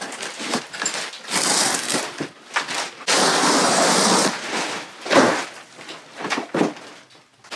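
Old ceiling lining being torn down by hand: ripping, rustling and crackling, loudest for about a second starting three seconds in, as a large sheet tears loose. A few sharp knocks follow.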